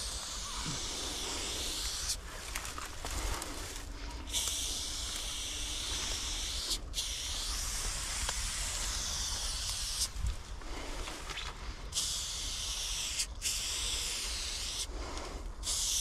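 Aerosol spray paint can hissing as a black outline is sprayed onto a concrete wall. It comes as a string of long hisses, each one to three seconds, with short breaks between them as the nozzle is released and pressed again.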